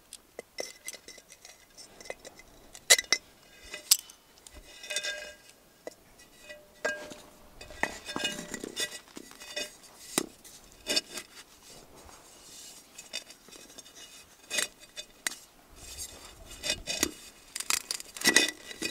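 Terracotta flowerpot clinking and cracking as its bottom is chipped out with a metal hand tool, then knocking and scraping as the pot is handled and set down on gravelly soil. Sharp, ringing ceramic clinks come at irregular intervals.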